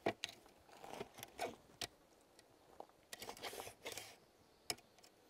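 Faint, scattered clicks and light scrapes of a spirit level being set down and shifted on a wooden beam.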